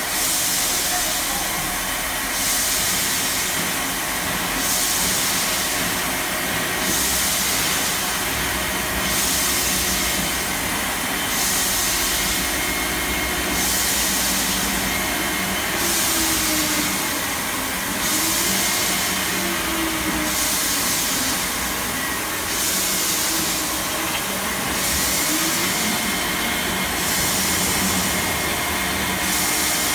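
CNC H-beam drilling line running: steady machine noise with a hiss that swells and fades about every two seconds.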